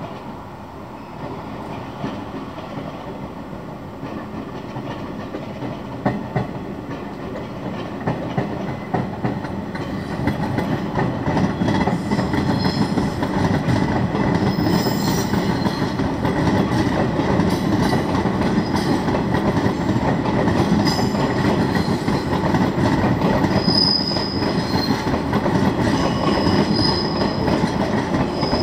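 JR West 415 series 800-subseries electric train pulling in over the station approach tracks, wheels clattering over rail joints and points and squealing intermittently on the curves. The sound grows louder until about halfway, then stays steady as the train passes close by.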